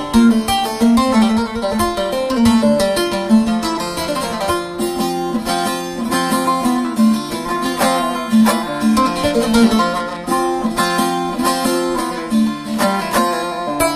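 Instrumental music led by a plucked string instrument playing quick melodic notes over a repeating lower-note pattern.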